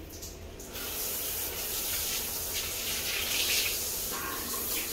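Handheld shower head spraying water: a steady hiss that starts about a second in.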